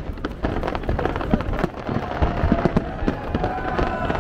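Fireworks display: rapid, dense crackling pops going off continuously over a low rumble.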